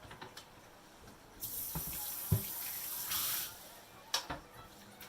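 Kitchen tap running into a sink for about two seconds, starting about a second and a half in and shutting off, with a few short knocks around it.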